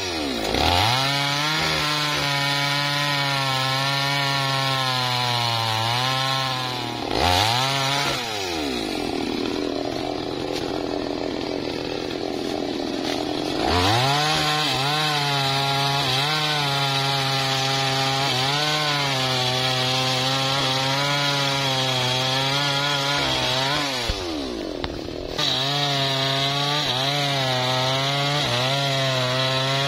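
Small two-stroke chainsaw running at high revs while cutting through a dead, dry teak log. The engine pitch holds steady for long stretches, and drops and recovers a few times.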